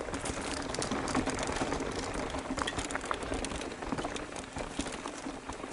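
Mountain bike descending a dirt trail: tyres crunching and rattling over dirt and stones, with many small knocks and ticks from the bike.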